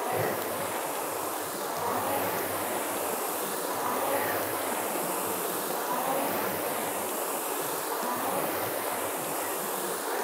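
Concept2 rowing machines' fan flywheels whirring as three rowers pull at about 28 strokes per minute, the whoosh swelling with each stroke roughly every two seconds.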